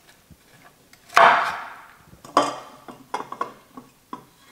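Broccoli florets being pushed by hand into a glass jar: two rustling scrapes, the first about a second in and the louder, then a few light clicks and knocks of the florets against the glass.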